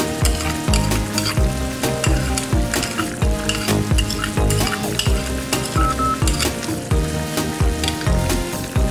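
Spiced tomato-chilli sauce bubbling and sizzling in a frying pan, under background music with a steady beat.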